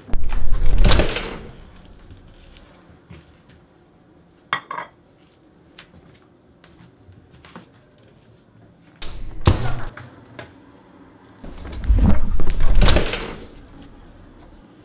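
Heavy thuds with a deep low rumble, three times: about a second in, around nine seconds and around twelve seconds, typical of a closet door being swung and shut. Near four and a half seconds there is a short ringing clink, like a ceramic plate set down on a tiled floor.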